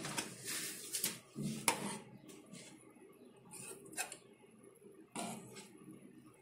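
A steel spoon stirring a thick curd-and-masala mixture in a metal kadhai, scraping and clinking against the pan in irregular short knocks.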